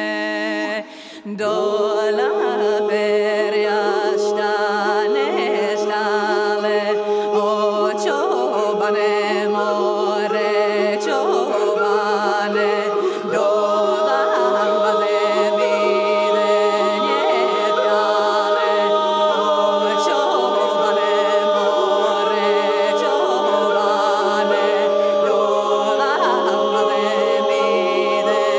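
Soundtrack music of unaccompanied voices singing in held chords. It drops out briefly about a second in, then carries on.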